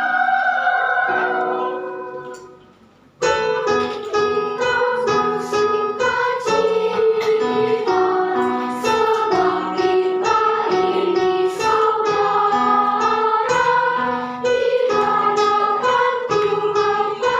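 Singing over a plucked-sounding musical accompaniment. The music fades out about two seconds in and starts again abruptly about a second later.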